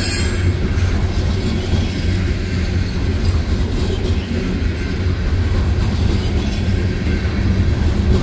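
Freight train cars rolling past close by: a steady, loud rumble of steel wheels on the rails.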